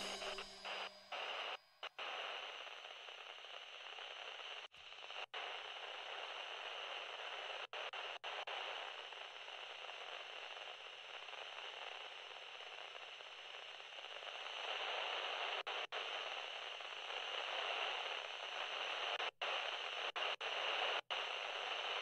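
Steady static hiss, like an old television or radio between stations, broken by brief dead cut-outs every few seconds. It grows slightly louder about two-thirds of the way through.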